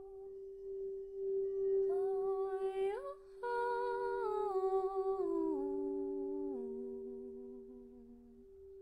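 A crystal singing bowl rings a steady sustained tone, while a woman's voice hums a slow wordless melody over it. The voice comes in about two seconds in, slides up, then steps down note by note and fades out near the end.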